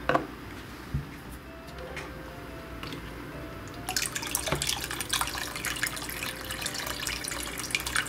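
From about four seconds in, a stream of pumped water pours from a slot in a small plastic container and splashes into a basin of water, like a small waterfall. Before that there are only a few faint clicks.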